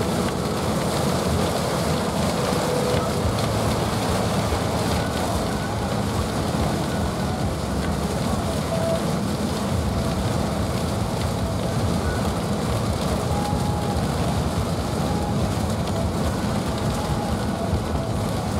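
Heavy storm rain pelting a vehicle's roof and windows, a steady dense hiss over a constant low rumble.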